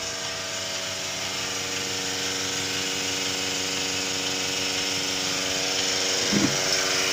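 Milking machine's 500 LPM vacuum pump, belt-driven by a 1.5 HP motor, running steadily with an even hum and hiss that grows gradually louder. A brief low sound breaks in about six seconds in.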